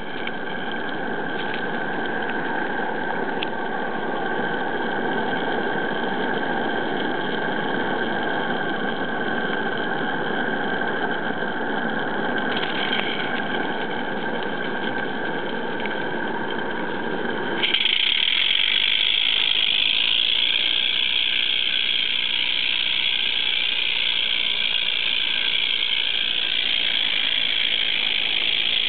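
Regner Vincent live-steam model locomotive running close up: a steady hissing mechanical running noise with no distinct beat. About two-thirds of the way through it changes suddenly to a louder, higher hiss.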